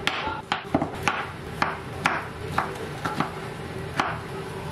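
Knife chopping on a cutting board, single sharp strokes about twice a second, unevenly spaced.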